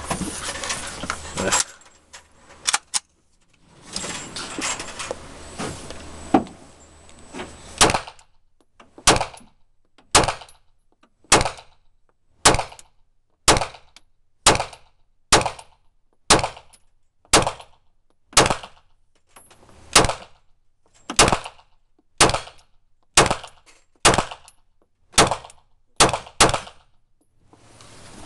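9x21 Glock 17 Gen4 pistol in a Roni G2 carbine conversion kit fired in slow, regular single shots, about one a second. About twenty shots start some eight seconds in, each short and sharp. Before the firing there is handling noise and a few clicks.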